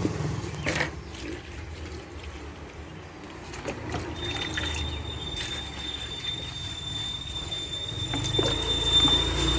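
Water being poured into a bird-water bowl, trickling and splashing.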